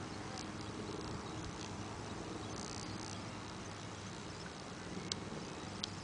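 Distant thunder rumbling on without a break, a low steady roll, with two sharp clicks near the end.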